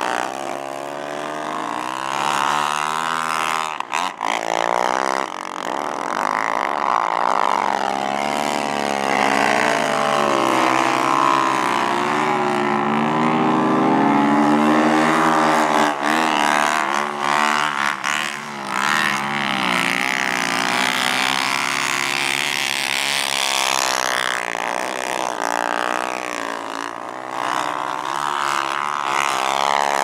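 Snow bikes' dirt-bike engines revving, the pitch rising and falling constantly with the throttle as they ride through deep powder.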